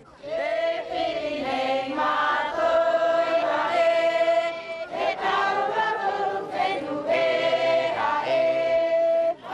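A group of voices singing a Polynesian chant together in several parts, with long held notes.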